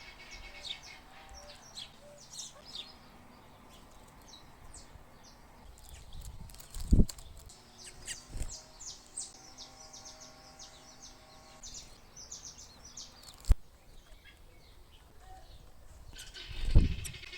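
Small songbirds chirping and calling in quick short notes around a feeding box. Several loud dull thumps and one sharp click break in among the chirps.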